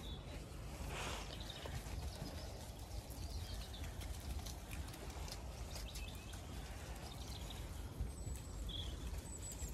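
Low wind rumble on the microphone, with light rustling and soft steps of sheep moving about on the muddy ground. A few short, high bird chirps come near the end.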